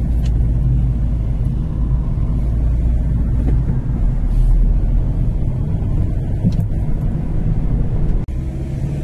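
Steady low rumble of engine and tyres heard from inside a moving vehicle's cabin, with a brief sudden dropout about eight seconds in.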